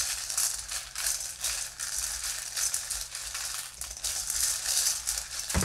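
Letter tiles being stirred and shuffled by hand in a metal bowl: a continuous clattering rattle of many small clicks.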